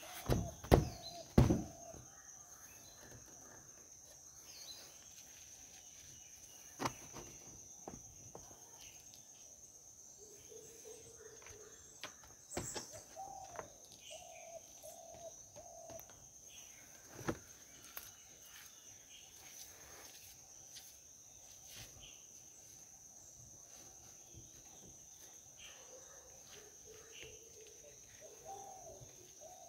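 A few sharp taps in the first second and a half, from hands patting on the three-wheeler's metal window panel. Then outdoor background: a steady high-pitched insect drone, occasional bird calls and a couple of isolated knocks.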